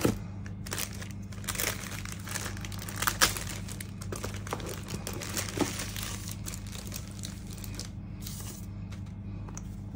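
Thin clear plastic bag crinkling and rustling as a laptop is slid out of it, in irregular crackles with the loudest about three seconds in.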